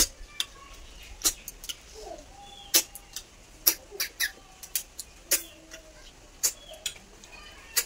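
Sharp, quick sucking slurps of someone eating cooked freshwater snails, pulling the meat out of each shell with the lips, about once a second.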